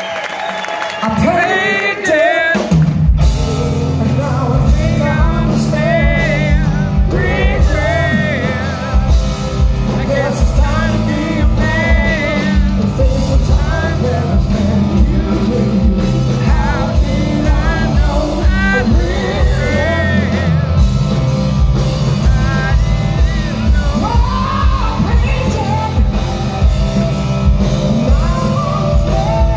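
A live rock band with electric guitar, bass guitar, drum kit and a male lead singer comes in loudly about three seconds in, after a moment of crowd cheering, and plays on with heavy bass and drums under the singing.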